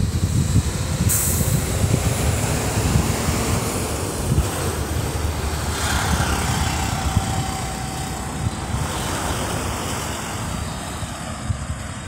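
Wind buffeting the microphone in an uneven low rumble, with road traffic passing, loudest about halfway through.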